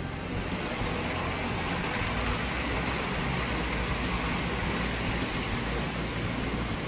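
Lionel 225E O gauge toy steam locomotive and its passenger cars running on three-rail tinplate track: a steady whir of the motor and wheels with a low hum underneath.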